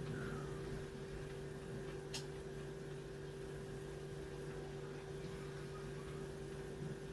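A steady low hum with an even hiss behind it, and a single faint click about two seconds in.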